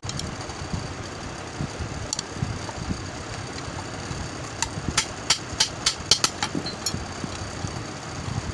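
A thin metal rod clicks and taps against the stand fan motor's metal housing, about nine sharp clicks at roughly three or four a second in the middle of the stretch. A steady low rumble runs underneath.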